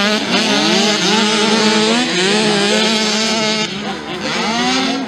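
Several 50–65 cc two-stroke mini motocross bikes racing at once, their high-pitched engines rising and falling in pitch as the riders rev and shift.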